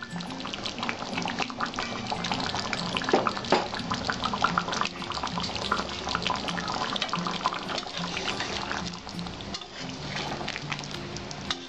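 A curry of potatoes and pointed gourd simmers and bubbles in an aluminium kadai, with many small pops and clicks as a metal spatula stirs and scrapes through it. Soft background music plays underneath.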